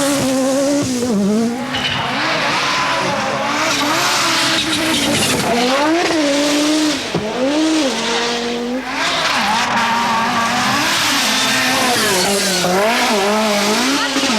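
Group B rally car driven hard: the engine revs climb and fall back repeatedly as the driver shifts gears and lifts off, over a steady hiss of tyre noise.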